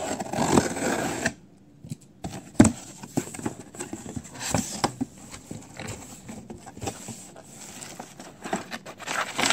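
Scissors slicing along the seam of a cardboard shipping box in a rasping run of about a second, then the cardboard flaps being pulled open and the contents handled, with scrapes, rustles and a sharp knock about two and a half seconds in.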